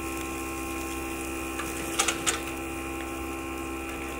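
Steady electric hum of the Power Smokeless Grill's built-in smoke-extraction fan, with two quick clicks about two seconds in as a metal spatula lifts burger patties off the grate.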